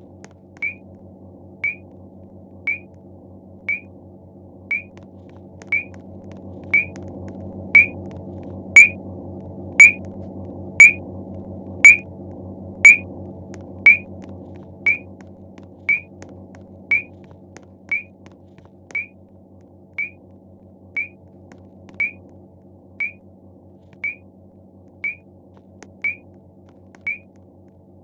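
Fire alarm sounding a short, high beep about once a second, evenly spaced, over a steady low hum. The beeps grow louder for several seconds in the middle, then fade back.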